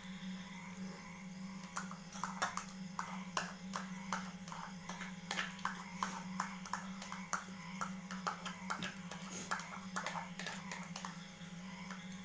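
Eating sounds: metal spoons clicking and scraping against plastic bowls, with mouth sounds of eating, as a run of irregular sharp clicks that starts about two seconds in and thins out near the end, over a steady low hum.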